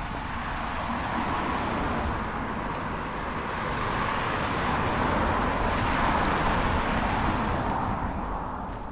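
Road traffic: a vehicle's tyre and engine noise on the main road, swelling to a peak a little past the middle and fading near the end as it passes.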